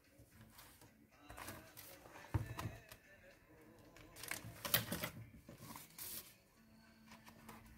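Paper rustling and crackling as sheets of thick die-cut paper pictures are handled and pieces pressed out by hand, with a few sharp clicks and a low thump about two and a half seconds in.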